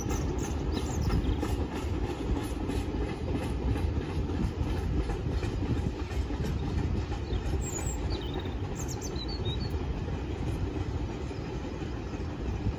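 Freight train of enclosed car-carrier wagons rolling past: a steady low rumble with a regular clatter of wheels over rail joints, and a few brief high squeaks partway through.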